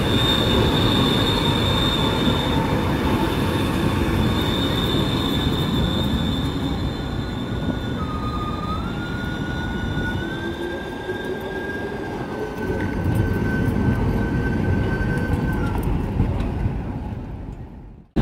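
Trams passing close by on street track: a steady rumble of wheels on the rails, with a high steady squeal through the first few seconds. From about eight seconds in, a whine steps up in pitch for several seconds, and the sound falls away just before the end.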